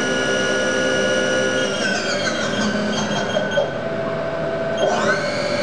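Haas TM-1 CNC mill's spindle drive whining steadily at speed, then winding down with a falling whine about two seconds in. A couple of small clicks follow, and near the end the spindle spins up again with a rising whine that settles to a steady pitch.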